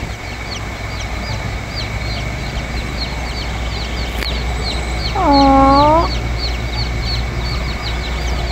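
Chicks peeping constantly, several short high falling peeps a second, as they forage around their mother hen. About five seconds in comes one louder, drawn-out call.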